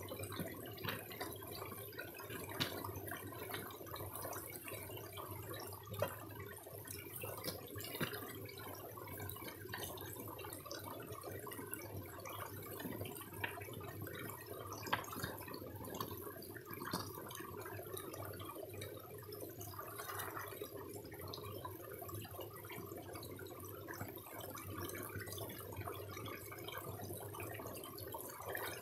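Small shallow creek trickling over stones, a steady gentle water noise with scattered short splashes.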